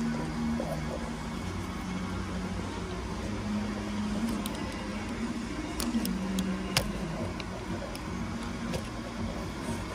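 Steady low, wavering hum of workshop background noise, with a few short sharp clicks about six to nine seconds in as the horn wire connectors are worked off the steering wheel.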